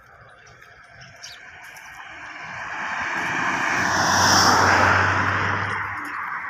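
A car driving toward the listener on a paved road and passing close by: tyre and engine noise grows louder, peaks about four and a half seconds in, then fades as it goes past.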